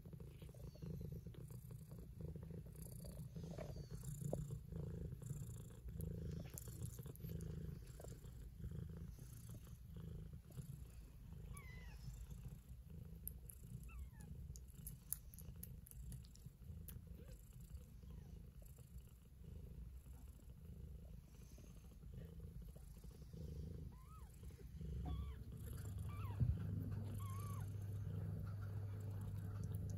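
Cat purring with a steady, pulsing low rumble while newborn kittens nurse against her, with a few faint high squeaks scattered through. Near the end a steady low hum joins, with a single sharp tick.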